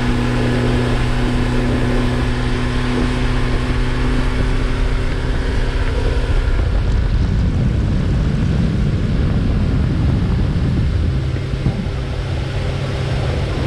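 Fishing boat's motor running steadily at cruising speed, its hum mixed with rushing wind and spray from the wake. About halfway through, the wind and water noise drowns the engine note for a few seconds before it comes back.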